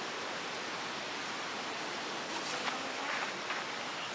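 Steady outdoor rushing noise with no clear pattern, and a few faint short sounds partway through.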